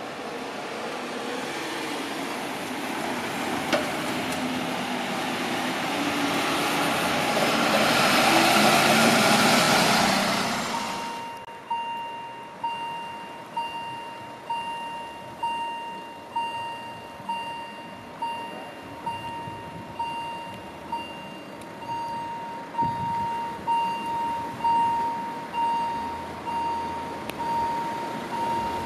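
A swelling rush of passing-vehicle noise builds for about ten seconds and then breaks off. After that, the warning bell of a Swiss railway level crossing rings steadily, about one ringing stroke a second, as the crossing closes for an approaching train.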